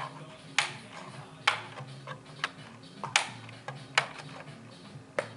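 Hard plastic toy parts clicking and knocking as they are handled and snapped together: about six sharp clicks at an irregular pace of roughly one a second, over a faint low hum.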